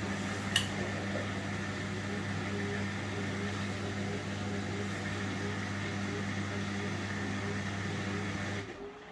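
Indesit washing machine's drain pump running with a steady hum, the drum already emptied of water, before the spin; it cuts off suddenly about eight and a half seconds in.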